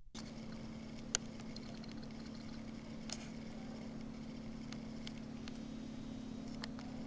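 A steady low hum with a few faint clicks, one sharper click about a second in.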